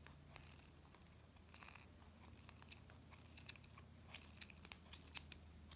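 Small scissors snipping through yarn wound on a pompom maker: a series of faint, irregular snips that come more often in the second half, the sharpest about five seconds in.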